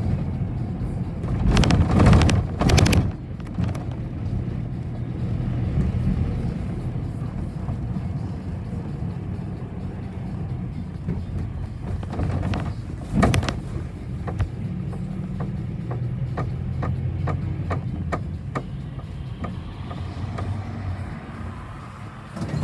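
City bus heard from inside the cabin: the engine runs with a steady low hum while the body knocks and rattles loudly twice, a couple of seconds in and again about halfway. Later comes a run of short, evenly spaced ticks as the bus slows to a stop.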